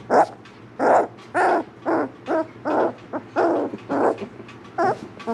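Young standard poodle puppies crying: a string of short, pitched cries, about two a second.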